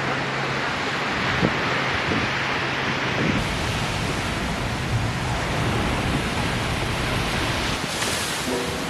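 Steady rush of ocean surf, an even wash of noise with no breaks.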